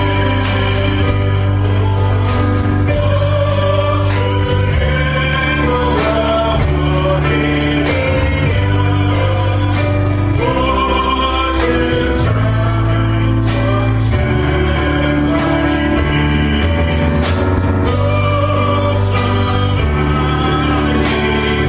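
Gospel worship song: a group singing over a band with steady bass and a regular beat.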